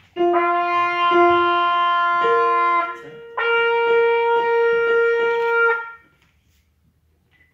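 Trumpet playing long held notes: a lower note sounded twice, then a higher one, a short break about three seconds in, and a long held higher note that stops about six seconds in.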